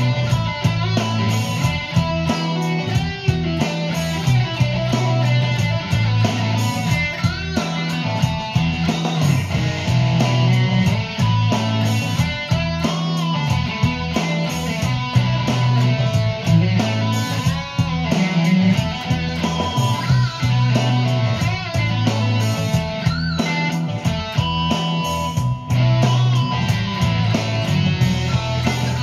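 Electric guitar, a Stratocaster-style solid-body played through an amplifier, running through a boogie-style rock riff with a few bent notes, over a steady low bass line.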